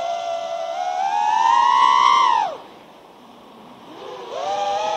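Brushless motors and propellers of a 6S FPV freestyle quadcopter (iFlight XING X2208 1800KV) whining. The pitch climbs as the throttle is pushed up, then falls sharply about two and a half seconds in as the throttle is chopped for a dive toward the grass. It stays quiet for about a second and a half, and the whine rises again near the end as the throttle comes back on to pull out.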